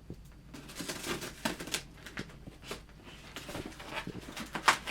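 A cardboard shipping box being opened by hand: a scatter of irregular scrapes, taps and rustles of cardboard and packing, busier and a little louder near the end.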